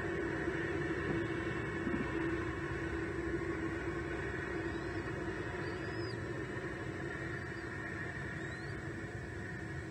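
Steady low rumble and hum, like distant road traffic, with a few faint, short, high chirps near the middle and again later.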